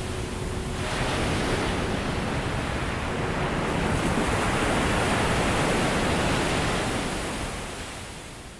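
Ocean surf washing ashore as a steady rush, swelling about a second in and fading out near the end.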